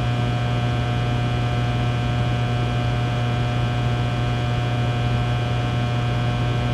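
Fluorescent lights humming: a steady, unchanging low electrical hum with a thin buzz of higher tones above it.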